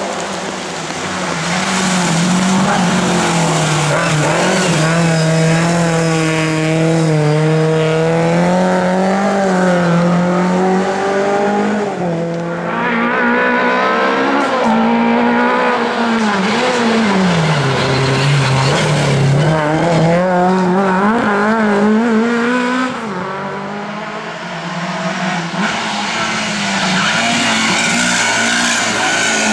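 Racing Lada engines revving hard through the gears, the pitch climbing and falling repeatedly and dipping low about two-thirds of the way through before climbing again. Tyres squeal under cornering.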